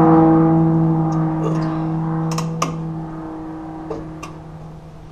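A metal part of a rear drum brake assembly ringing after a strike, one steady pitched tone with several overtones that slowly dies away. A few light metal clicks from pliers working on the brake hardware sound over it.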